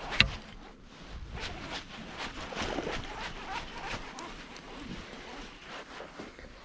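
A sharp click about a quarter second in, then faint, irregular ticks and rattles: a baitcasting reel being engaged and cranked to retrieve a jerkbait.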